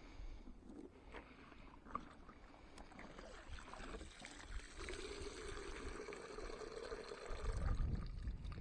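Water pouring and trickling out of a cut plastic-bottle live-bait container as it is lifted from an ice-fishing hole, with a low rumble of handling near the end.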